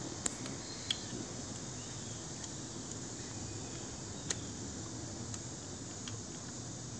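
A few sharp little clicks of small lawn mower carburetor parts being handled and pressed together as they are refitted. The three loudest come twice within the first second and once about four seconds in, over a faint steady hiss.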